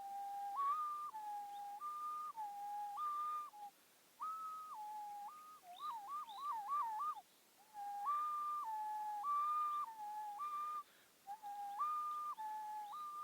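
A person whistling an imitation of a two-tone ambulance siren: a clear tone jumping back and forth between a low and a high pitch about every half second, with a quick warble about six seconds in and a few brief breaks for breath.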